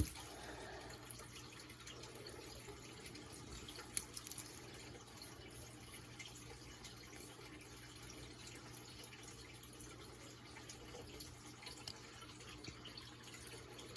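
Faint scratching of a pencil drawing on paper, with a couple of small taps, one at the start and one about four seconds in.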